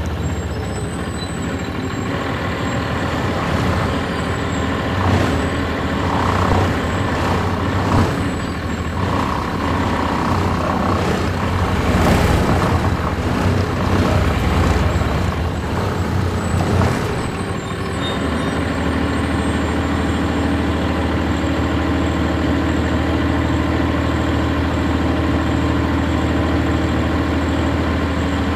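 A 1999 NovaBus RTS transit bus's Cummins ISC straight-six diesel heard from on board, running with rattles and clunks through the body. A little past halfway it settles to a steady idle.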